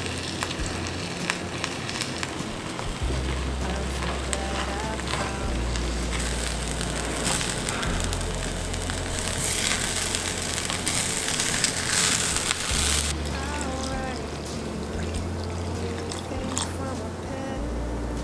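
Rice sizzling as it is stir-fried in an earthenware pot, with small clicks and scrapes of a wooden spoon. The sizzle is loudest about ten to thirteen seconds in. Background music with a steady bass line plays throughout.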